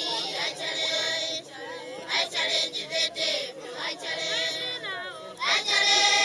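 A group of children singing together, with a loud, full-voiced phrase starting near the end.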